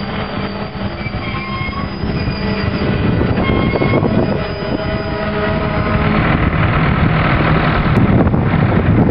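Freight train of covered hopper cars rolling past, its wheels squealing on the rails in thin, steady high tones over the rumble of wheels on track. From about the middle on, the squeal fades and the rolling rumble grows louder.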